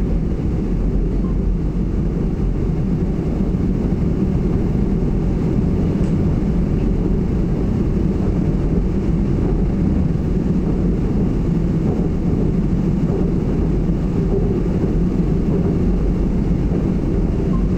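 Seoul Subway Line 2 electric train running along an elevated track, a steady low rumble heard from inside the car.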